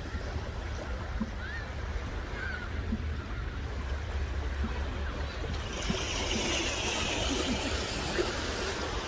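Sea surf washing ashore over a steady low wind rumble, the wash of the waves swelling about six seconds in. A few faint short bird calls sound in the first few seconds.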